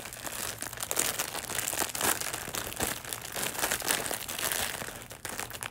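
Plastic packaging crinkling and crackling in irregular bursts as it is pulled at by hand to get it open.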